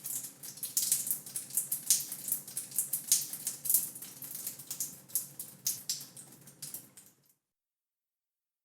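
Water drops dripping and pattering irregularly in a shower stall, thinning out and stopping about seven seconds in.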